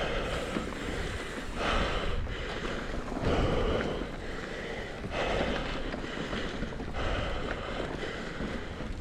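A mountain biker breathing hard while pedaling, a breath roughly every one and a half to two seconds, over wind rushing on the camera microphone.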